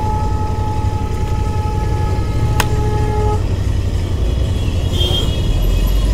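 A vehicle horn blares in one steady, held two-tone note and stops about three and a half seconds in, with a sharp click partway through. Under it runs the steady low rumble of the motorcycle ride in traffic.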